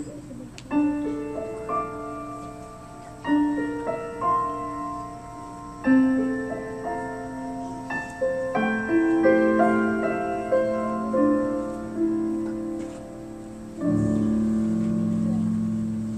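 Slow solo piano closing a song: single notes and chords that ring and die away, then a final low chord struck about fourteen seconds in and left to fade.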